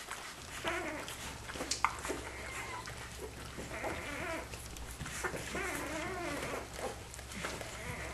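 Week-old Australian Kelpie puppies squeaking and whining as they nurse: a string of short, thin calls that bend in pitch, with a longer wavering whine about five to six seconds in.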